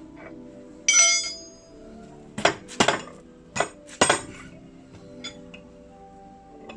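Metal tools clinking and knocking together: one ringing clink about a second in, then four sharp knocks between two and four seconds in, over steady background music.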